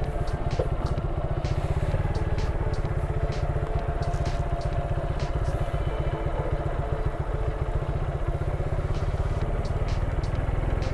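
Motorcycle engine idling steadily at a standstill, a low even pulsing, with scattered light clicks over it.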